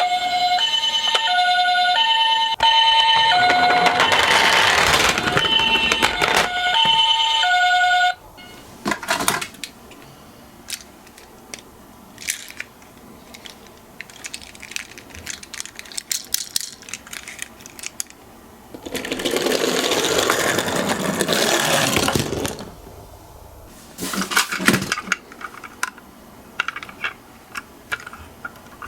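Toy miniature ambulance's electronic siren: alternating high-low beeps for about eight seconds, then it cuts off. Later, a few seconds of toy cars rolling and clattering, with scattered clicks.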